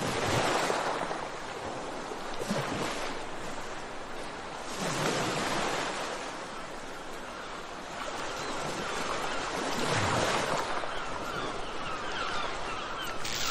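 Ocean surf: waves breaking and washing in, a steady rushing noise that swells every few seconds. Birds call faintly near the end.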